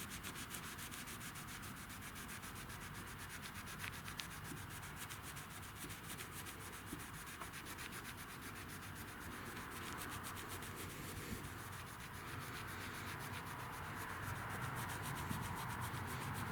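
Cloth rubbing rapidly back and forth over car paintwork, working scratch-repair compound into surface scratches; a steady, even rubbing.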